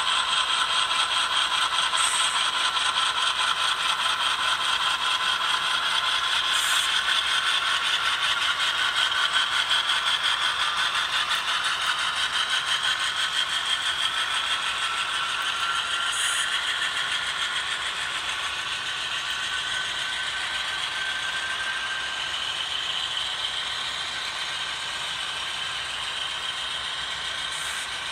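HO scale model freight train running: many metal wheels clattering and rattling over the track, with a faint high whine that drifts slowly in pitch. It eases off a little in the second half.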